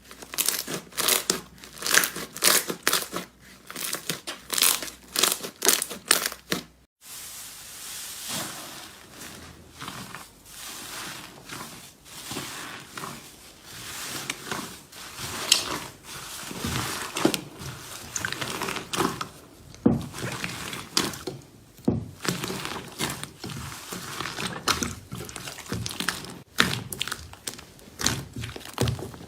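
Slime being squeezed and worked by hand, making dense crinkly, crackling clicks. About seven seconds in, the sound cuts to a softer, hissy squishing that is still dotted with clicks.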